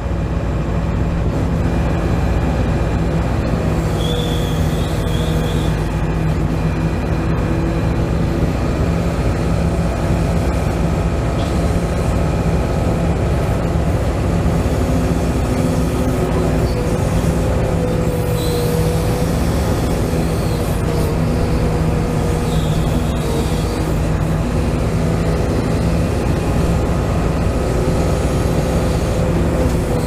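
Hydraulic pump of a radio-controlled excavator running steadily as it digs, a constant whine whose pitch wavers a little as the boom and bucket move. A few brief high squeals come through, about four seconds in and again twice near the middle.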